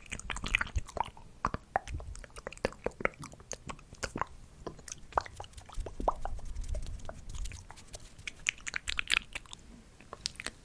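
ASMR mouth sounds very close to the microphone: a quick, irregular run of wet clicks and smacks.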